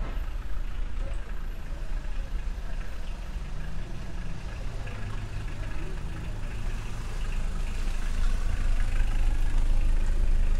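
A motor vehicle's engine running at idle with a steady low rumble, growing louder in the last few seconds, over street noise.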